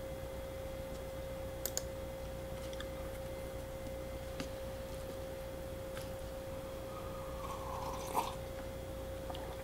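Light, scattered clicks of wooden chopsticks in a paper instant-noodle cup, then a short sip of broth from the cup about eight seconds in, over a steady high hum.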